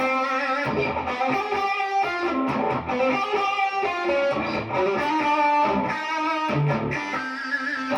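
PRS Special Semi-Hollow electric guitar being played: a continuous melodic passage of picked notes ringing into one another.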